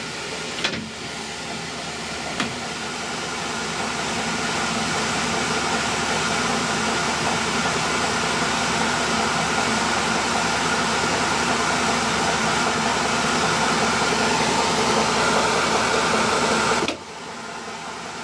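Colchester metal lathe running a power-fed screw-cutting pass: a steady mechanical whirr of the gear train and leadscrew as the threading tool cuts. Two clicks come in the first three seconds as the half-nut is engaged, and the sound drops suddenly about a second before the end.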